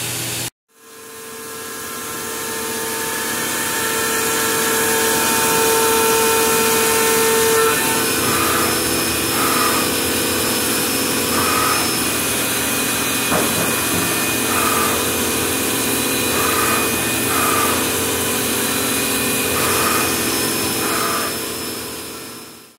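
CNC vertical milling machine cutting an aluminium plate with an end mill under flood coolant: a steady spindle whine over the hiss of coolant and cutting noise. It fades in at the start, the strongest tone stops about eight seconds in, and short chirps recur every second or two after that.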